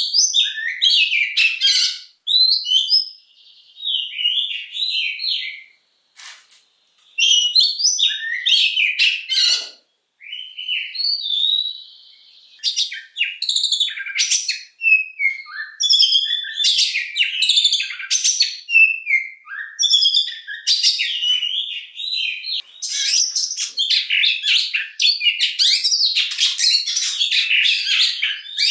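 Oriental magpie-robin singing a loud, fast, varied song of chirps, trills and whistles, with a few held whistles. It pauses briefly a few times, then sings almost without a break through the second half.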